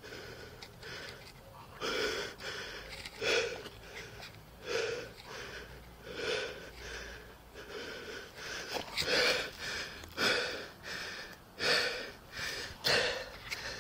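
A man breathing hard and fast right at a chest-worn body camera's microphone, about one breath every second to second and a half.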